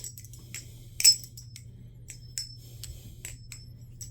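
Balisong (butterfly knife) being flipped: sharp metallic clicks and clinks as the handles swing and knock together, with one loud clack about a second in and several lighter ones after.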